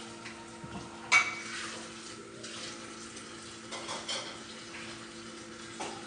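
Dishes and utensils clinking: one sharp clink about a second in, followed by a few lighter knocks, over a steady low hum.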